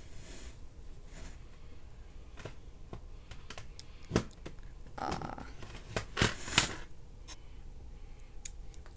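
Plastic CD jewel cases being handled: scattered clicks and rustling, with a sharp clack about four seconds in and a cluster of clacks and rubbing around five to six and a half seconds in.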